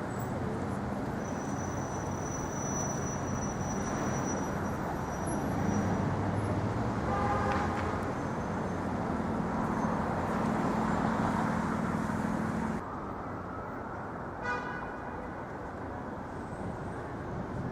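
City street traffic: a steady wash of passing vehicles with a low engine hum. A short horn toot sounds about seven and a half seconds in, and another brief tone comes near the end.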